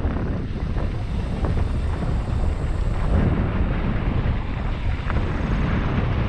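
Wind buffeting the microphone of a camera on a mountain bike ridden downhill, with a steady rumble and scattered knocks and rattles from the bike over rough, rocky trail.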